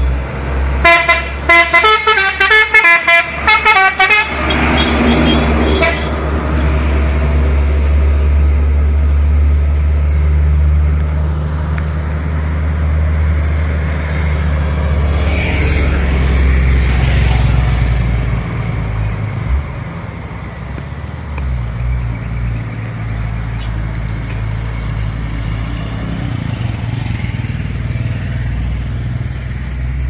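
Telolet Basuri musical horn on a Hino palm-fruit truck, playing a rapid run of changing notes for about three seconds near the start. Then the truck's diesel engine runs steadily as it drives along, growing quieter in the second half.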